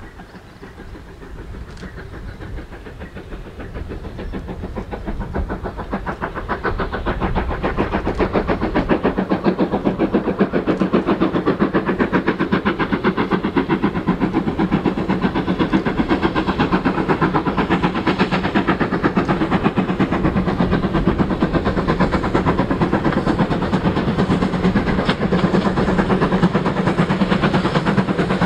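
GWR 4200 class 2-8-0 tank engine working a short goods train, its exhaust beats and the train's running sound growing louder over the first several seconds as it approaches, then a steady fast beat as it passes close by.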